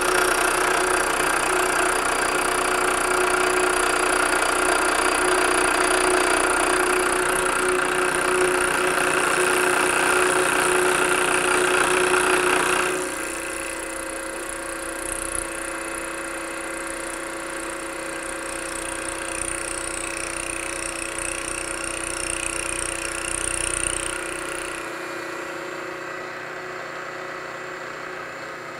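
Milling machine running a heavy Don Cossett fly cutter with a high-speed steel tool at about 1850 RPM, taking a facing cut across an aluminium block. The cut is a steady hum with cutting noise over it. It drops markedly in loudness about 13 seconds in and eases again near the end.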